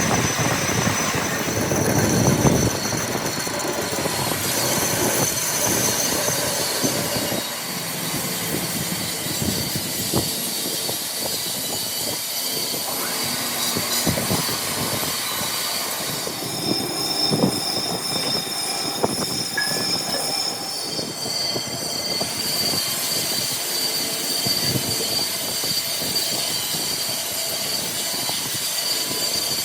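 Metalworking on a truck's rear suspension trunnion shaft: a high, steady metallic squeal with several tones that change every few seconds, over a rough metal noise with scattered knocks.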